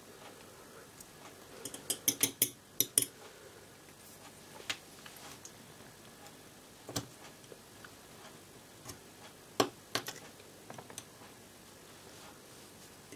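Hobby knife blade cutting and scraping at the plastic of a LEGO pneumatic switch body: small sharp clicks and scratches, a quick run of about six around two seconds in, then single clicks every second or two.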